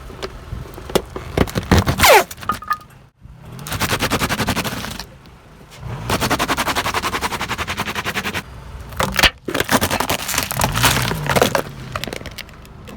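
Objects cracking and crunching as they are crushed under a car's tyres: a run of sharp cracks and snaps, two stretches of rapid, even crackling, and a loud crack a little past the middle.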